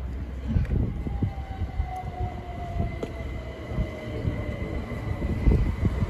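Southern Class 377 Electrostar electric multiple unit running into the platform and slowing to stop, with a low rumble and a whine that slowly falls in pitch as it slows. A faint steady high tone comes in about two seconds in.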